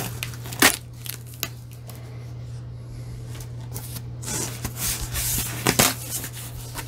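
Cardboard shipping box being pulled open by hand: flaps and paper scraping and rustling, with a few sharp knocks of cardboard, the loudest about half a second in and just before six seconds. A steady low hum runs underneath.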